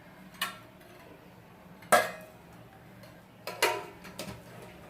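Kitchen utensils clinking: a spoon and spice-box containers knock together as whole spices are spooned from a tempering spice box into a pot. There are a few sharp metallic knocks, the loudest about two seconds in.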